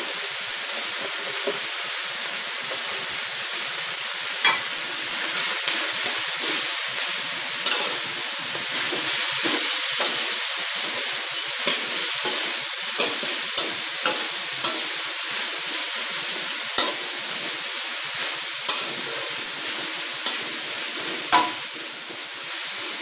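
Hong Kong kale and minced pork stir-frying in a hot wok: a steady sizzle, with the metal spatula scraping and knocking against the wok every second or two as the greens are tossed.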